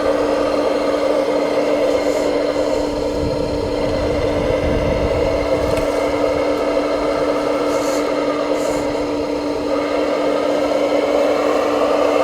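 Radio-controlled construction models at work: a steady, unchanging electric motor whine, with a low rumble about three to five seconds in and a few faint clicks.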